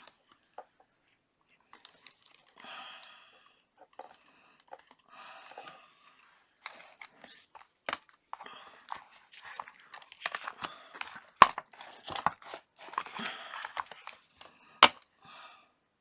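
Handling noise: irregular crinkling, peeling and crunching with several sharp taps as small objects are moved about on a work surface.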